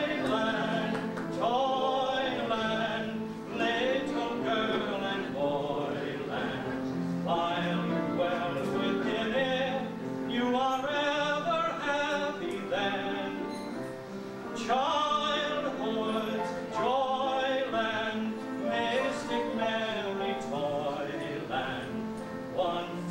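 A voice singing in an operatic style with wide vibrato, in long phrases over instrumental accompaniment.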